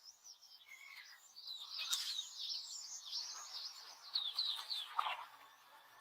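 Forest birds chirping: many short, high calls repeated quickly and overlapping, with one lower call about five seconds in.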